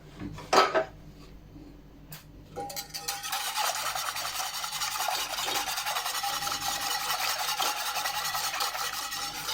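A couple of sharp clanks of a utensil against the pan, then, from about two and a half seconds in, a spoon stirring and scraping steadily around the bottom of a pan of white sauce as it thickens.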